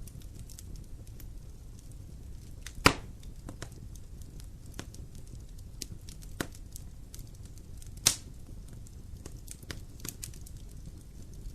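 Wood fire burning in a fireplace, crackling with scattered small clicks and two sharp, loud pops about three and eight seconds in, over a low steady rumble.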